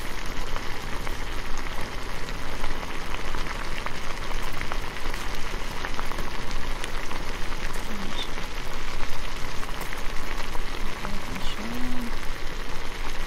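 Thick berry sauce bubbling in a stainless steel pot on a gas grill burner, stirred with a wooden spoon: a steady hiss with small pops and clicks throughout.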